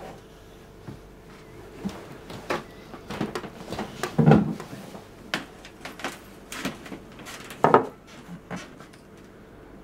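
Kitchen handling sounds: a scattered run of short knocks and clinks, like dishes and cupboard doors, with the loudest knock about four seconds in and another strong one later.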